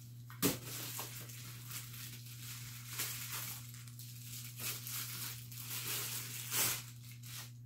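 Clear plastic bag crinkling and rustling as a camera lens is unwrapped from it by hand, with a few louder crackles.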